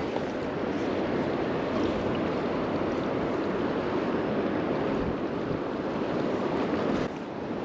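Steady wash of surf mixed with wind buffeting the microphone, dipping briefly near the end.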